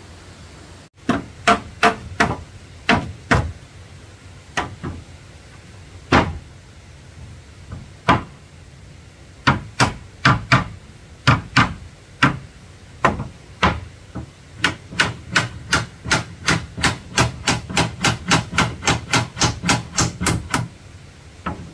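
Hammer blows on wood: scattered, uneven strikes at first, then a fast steady run of about three blows a second for several seconds before it stops.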